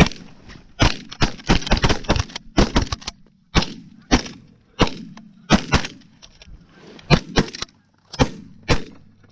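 A volley of shotgun fire from several hunters shooting at geese over decoys: many sharp shots in quick succession, some nearly overlapping, with brief gaps, each followed by a short echo.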